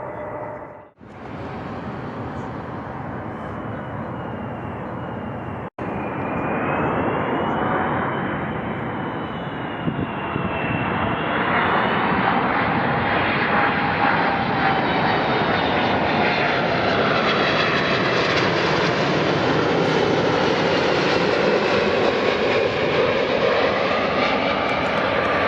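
Jet airliner engines close by: a loud steady rush of jet noise with whining tones that bend slowly in pitch. It drops out briefly twice early on, then grows louder from about six seconds in and stays loud.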